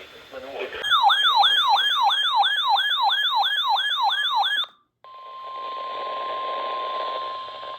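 An electronic alert siren whose tone sweeps down over and over, about three times a second, for about four seconds, then cuts off. After a brief gap comes the steady NOAA Weather Radio 1050 Hz warning alarm tone over radio hiss, which signals that a weather warning broadcast is about to follow.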